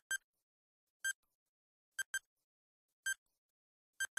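Countdown timer sound effect: short electronic ticks about once a second, some doubled into a quick pair, with silence between them.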